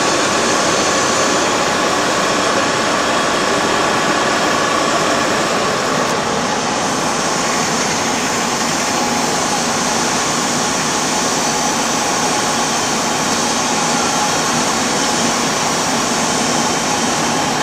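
CNC machine tool running with its spindle turning at about 1800 rpm: a steady mechanical running noise with a faint whine.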